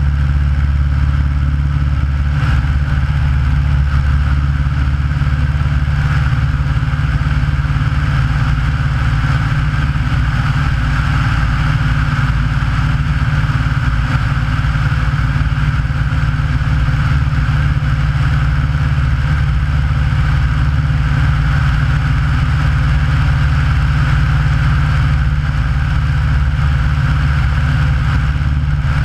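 Aeronca light airplane's engine and propeller running steadily in flight, a loud even drone with no change in pitch.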